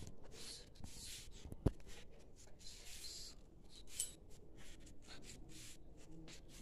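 Faint, irregular rustling and rubbing from movement and handling close to the microphone, with one sharp click a little under two seconds in.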